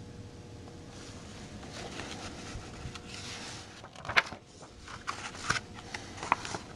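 Rustling and scraping of a hardcover picture book being handled and its pages turned, with a few sharp taps and clicks in the second half, the loudest a little after four seconds in.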